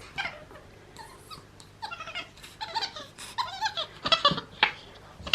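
Capuchin monkey squeaking and chirping while being tickled: a string of short, high-pitched calls, sparse at first and coming thick and fast from about two seconds in.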